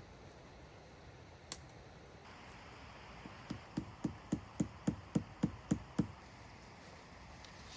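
A rapid run of about ten knocks, some four a second, from a tent stake being hammered into the ground. A single sharp click comes about a second and a half in.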